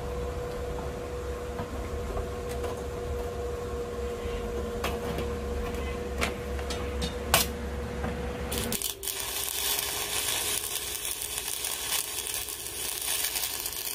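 Electric arc welder humming steadily. About nine seconds in, the arc is struck and an even crackling sizzle of welding takes over.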